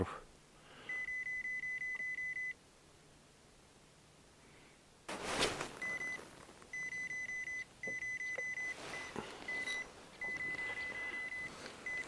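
Boat fish finder's fish alarm beeping: a high electronic tone in fast runs of short beeps, sounding again and again as the sounder marks a lot of fish below the boat. A short rustle breaks in about five seconds in.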